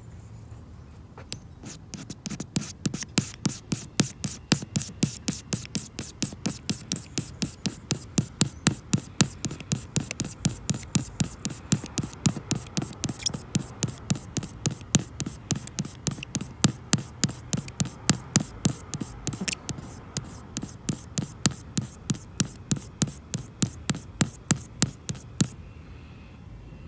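Rapid, regular scraping strokes on a hard surface, about three a second, stopping near the end.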